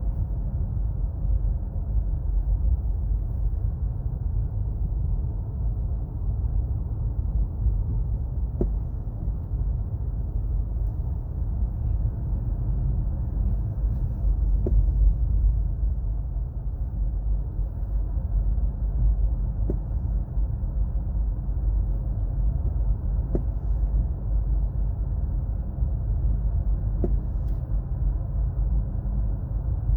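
Road and drivetrain noise inside the cabin of a 2017 Acura MDX under way: a steady low rumble with a few faint ticks. The owner is chasing a whine that grows with road speed, which he thinks comes from the front passenger side.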